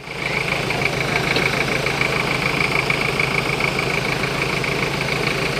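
Off-road 4x4's engine running steadily, with a constant high whine over it; the sound comes in abruptly at the start and holds level.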